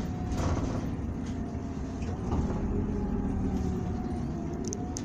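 Running sound from inside a 2019 Isuzu Erga city bus (2DG-LV290N2) under way: the steady drone of its four-cylinder diesel engine and drivetrain. The pitch climbs a little about two seconds in and eases off near the end.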